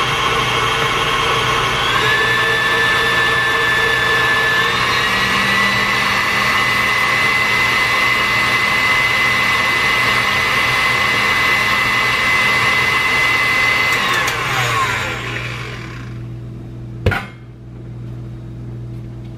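Electric mixer beating cookie dough: its motor whine steps up in speed twice in the first five seconds and runs steadily, then is switched off about fourteen seconds in and spins down with falling pitch. A single sharp knock follows about three seconds later.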